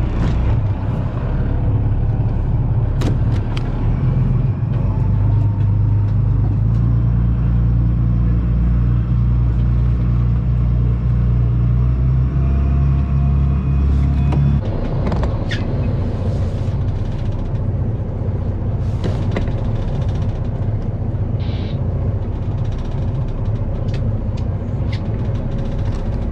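Fishing boat's engine running with a steady low drone, which cuts off abruptly a little over halfway through, leaving a lower rumble with occasional sharp knocks.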